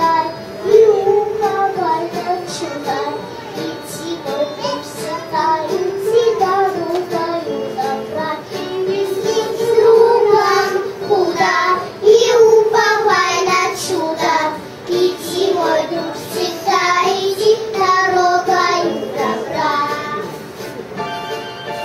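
A young girl singing a song solo into a microphone over music.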